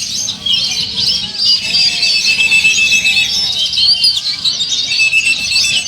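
Many caged songbirds singing at once, such as competing Oriental magpie-robins: dense, overlapping whistles, trills and chirps, over a low murmur of a crowd.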